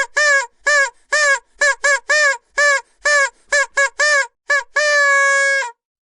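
A vuvuzela blown in a rapid series of short, even-pitched blasts, each dipping in pitch as it ends, followed by one longer held note of about a second near the end.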